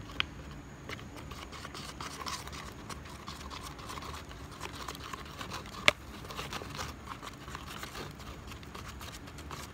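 Stir stick scraping around a plastic mixing cup of epoxy resin, hardener and chopped glass fibres: a steady run of soft scrapes and small ticks as the mix is worked, with one sharp tap about six seconds in.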